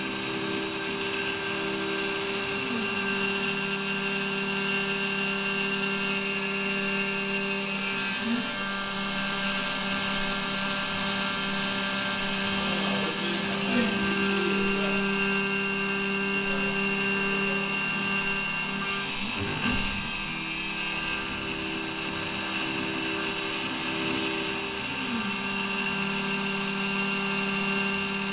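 Desktop CNC milling machine (model 7073) cutting aluminium: the spindle whines steadily at a high pitch as a small end mill cuts through the plate. Lower machine tones drop and shift in pitch several times as the cut moves, with a brief dip about twenty seconds in.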